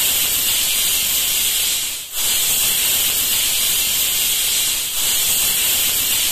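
Stovetop pressure cooker whistling: a loud, steady hiss of steam jetting out from under the weight valve on the lid, with a brief break about two seconds in. The whistle is the sign that the cooker has come up to pressure.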